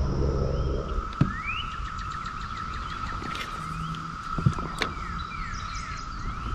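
Outdoor wildlife chorus: a steady high-pitched drone with short rising bird chirps over it, and a few sharp clicks about a second in and twice around the middle.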